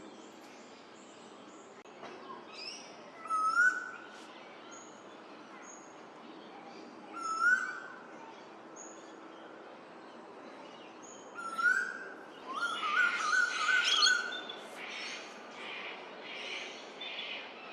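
Male eastern koel calling: loud rising whistled notes, one about every four seconds, then a quicker run of rising notes about two-thirds of the way through, over a harsher chatter. Short high chirps from smaller birds sound between the calls.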